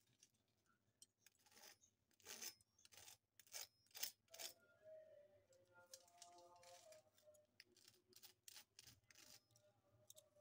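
Faint crisp crackling and crunching of a deep-fried breadcrumb crust as fingers press and handle the bread balls. It comes in two stretches of sharp crackles, over faint music.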